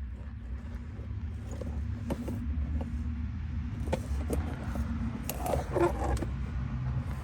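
Metal clinking and rattling, scattered clicks with a busier clatter a little before the end, from tools and an oil drain pan being handled under a pickup truck, over a steady low rumble.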